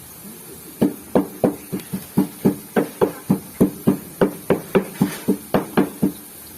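Rapid, even knocking, about three knocks a second, each knock with a short ringing tone.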